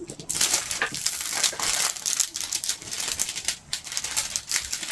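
Crinkling and crackling of a diamond painting canvas and its plastic cover film as it is handled and flexed, a dense run of small crackles throughout.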